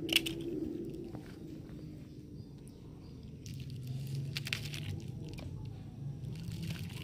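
A wet plastic bag crinkling and rustling as hands pull it open to get at a toy bus inside, the crackling busier in the second half. One sharp click at the start.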